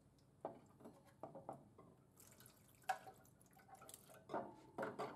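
Faint, scattered clicks and drips as a product sample is drawn from a frozen beverage dispenser's sampling point into a small cup.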